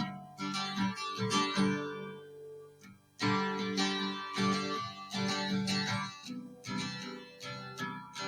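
Background music: acoustic guitar playing, strummed and picked, with a short drop in loudness just before three seconds in.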